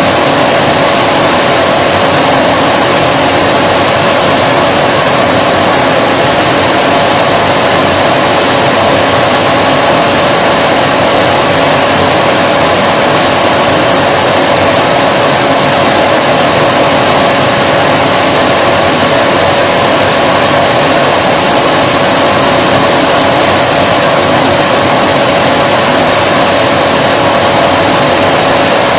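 Vacuum cleaner running continuously: a loud, steady rush of air with a fixed motor hum and high whine over it, unchanging throughout.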